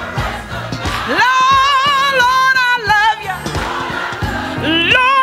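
Female gospel singer belting a long held high note that swells up about a second in and wavers at its end, then a shorter high note near the end, over church band accompaniment with a choir behind.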